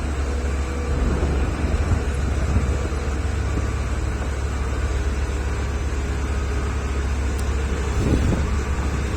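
Heavy earthmoving diesel engine running steadily with a deep low rumble.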